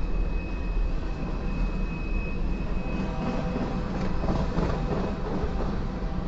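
Freight train of covered hopper cars rolling past: a steady low rumble of steel wheels on rail. A thin high tone in it fades out about halfway through.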